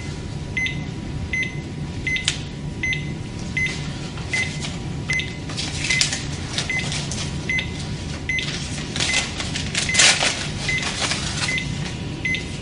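A cardiac monitor beeping once per heartbeat, short high beeps at an even pace of about eighty a minute, over a steady low hum. Papery rustling from the electrodes being handled and applied comes and goes, loudest about ten seconds in.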